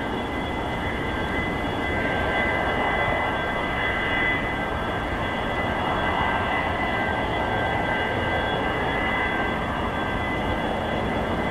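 Boeing 737-200's Pratt & Whitney JT8D jet engines running on the ground after landing: a steady rush of jet noise with a high whine over it.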